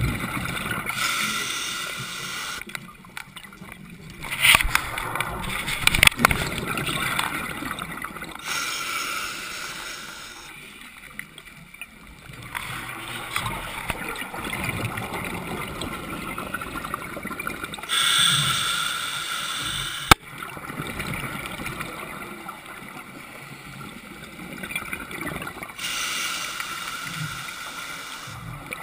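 Scuba regulator exhaust bubbles gurgling past the underwater camera in bursts every few seconds, with a steadier hiss in between. A single sharp click comes about 20 seconds in.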